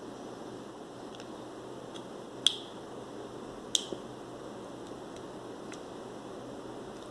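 Film leader and take-up spool being handled: two sharp clicks about a second and a quarter apart, with a few fainter ticks, over a steady low hiss.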